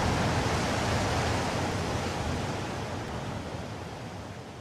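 Rushing sound of ocean surf, fading out steadily.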